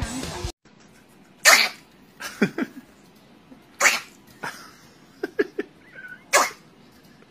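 A chihuahua snarling and snapping at a finger in a string of short, sharp bursts, about ten in all, the loudest about a second and a half in.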